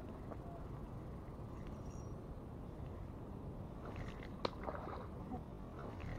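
Daiwa Revros spinning reel being cranked while playing a hooked tarpon on ultralight tackle, under a steady low rumble. A few sharp ticks come from about four seconds in.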